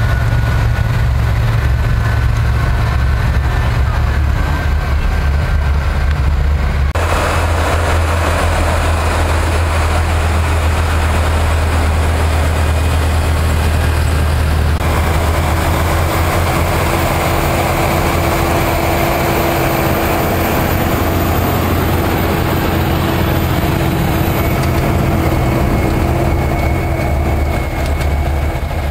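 Large Claas farm tractors' diesel engines running steadily as they pull cultivators and a seed drill through the soil. The sound changes abruptly about seven seconds in and again about halfway, as shots of different tractors are cut together.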